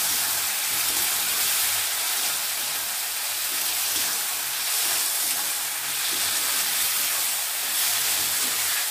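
Ridge gourd and spice paste sizzling in oil in a metal kadai, stirred with a spatula, with a steady hiss as the added spice water cooks off while the masala is fried down.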